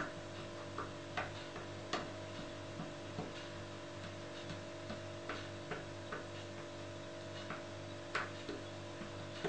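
Light, irregular taps of a small ink pad being dabbed onto paper cutouts lying on a cutting mat, over a steady electrical hum.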